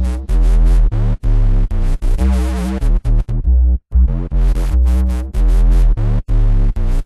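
Electronic music: loud held synth bass notes under layered synthesizer tones, chopped by a few abrupt momentary cuts to silence.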